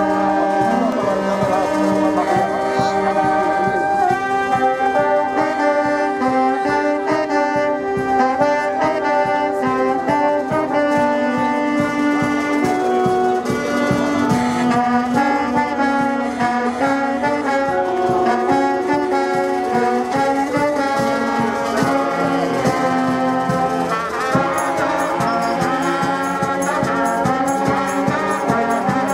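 A street brass band of saxophones and trumpets playing a lively tune live, with a drum keeping a steady beat underneath.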